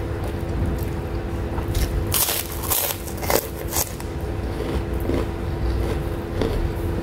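Crunchy keropok cracker bitten and chewed close to the microphone, a run of sharp crunches about two to four seconds in, over a steady low hum.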